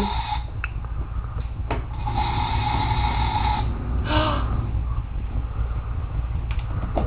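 Toy kitchen stove's electronic cooking sound effect playing from its small speaker, set off by a pan placed on the burner: a steady buzzy tone with hiss that cuts off about half a second in and comes back for about a second and a half a little after two seconds in.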